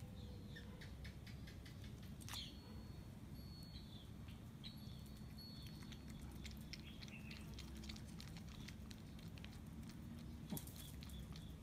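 Small dog licking a lickable squeeze-tube dog treat off a tile floor: faint, quick wet tongue clicks.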